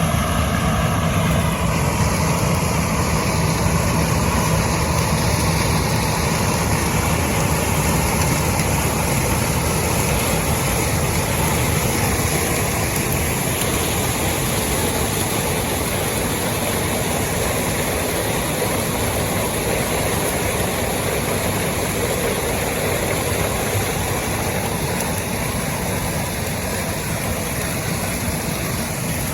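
Combine harvester running steadily while harvesting corn, a continuous heavy engine and machinery drone that eases off slightly near the end.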